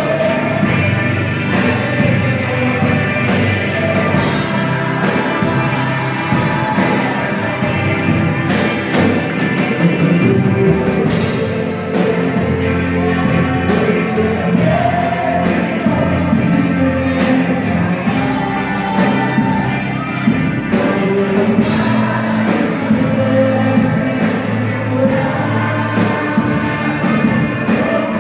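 Music with a loud drum kit keeping a steady beat, about three hits a second, and singing over it; the drums are loud enough to make the recording shake.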